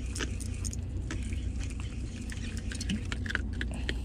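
A steady low hum, typical of the fishing boat's engine running, with many small, irregular clicks and light rattles over it.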